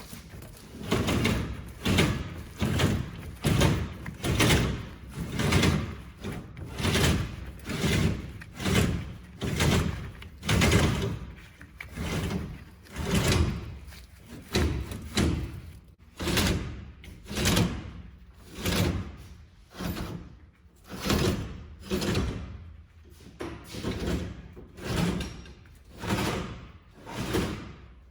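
Metal scraping and sliding on a combine grain head's cutterbar, in repeated strokes about once a second.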